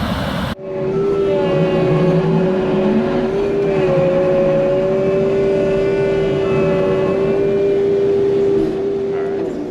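Kioti compact track loader running, with a steady high whine and a few overtones. Before that, about half a second in, a rougher rumbling machine noise cuts off abruptly.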